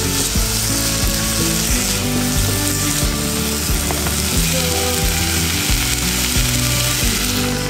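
Chopped carrot, burdock, shiitake and hijiki sizzling in oil and seasoning liquid in a saucepan, stirred with a spatula as the liquid cooks off. Background music plays underneath.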